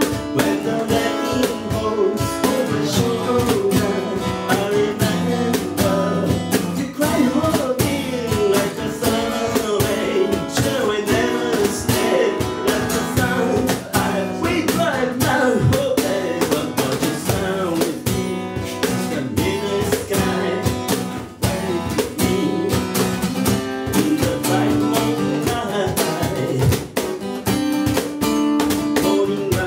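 Live acoustic music: a steel-string acoustic guitar strummed steadily while a man sings the melody, with a cajon tapping out the beat underneath.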